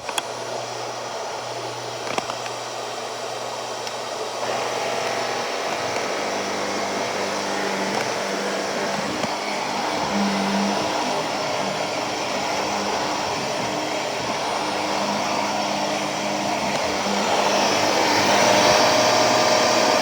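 Shark Navigator Lift Away Professional (NV391) upright vacuum cleaner running steadily with a continuous hiss. About four seconds in it grows louder and a steady low hum joins in, and it gets louder again near the end.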